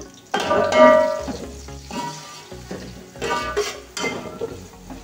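Sliced onions sizzling as they brown in hot ghee in an aluminium pot, stirred with a metal spoon that scrapes and knocks against the pot several times.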